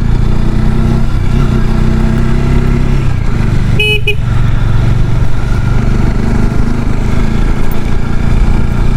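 Bajaj Dominar motorcycle engine running steadily under way on a mountain road. About four seconds in, the horn gives one short toot as the bike nears a bend.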